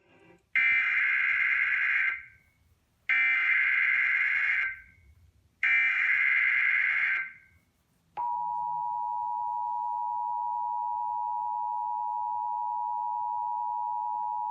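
Emergency Alert System header: three short bursts of warbling digital data tones, then the steady two-tone EAS attention signal starting about eight seconds in. Together they announce a National Weather Service coastal flood warning.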